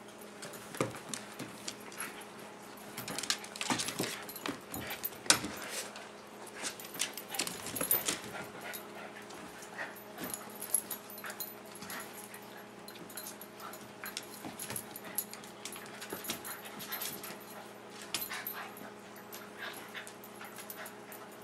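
Two small dogs play-fighting: whining and panting mixed with scuffling of paws and bodies on a cushioned bed, coming in irregular bursts of short sharp noises.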